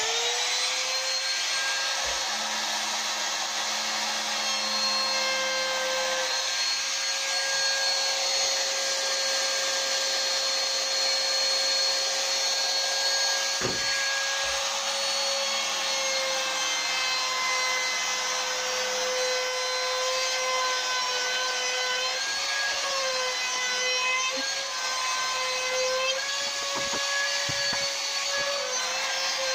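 Small hand-held trim router with a bearing-guided roundover cutter, spinning up and running with a steady high whine as it rounds over the edges of wooden boards. The pitch wavers and dips slightly as the cutter takes load, about two-thirds of the way through.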